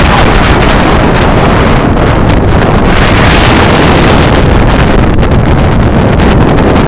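Storm-force wind buffeting the microphone: loud, steady wind noise with a heavy low rumble.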